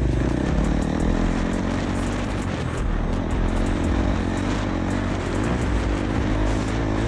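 Motocross dirt bike engine running at a fairly steady speed, with scattered small clicks over it.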